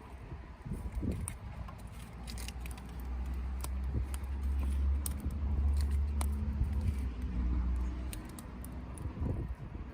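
Low engine rumble of a passing vehicle that swells and fades over several seconds, with scattered sharp crackles from a wood campfire.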